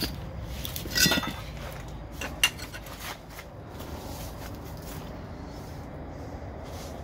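A loud metallic clink with a brief ringing about a second in, and a sharp tap about a second and a half later, over a low steady hum.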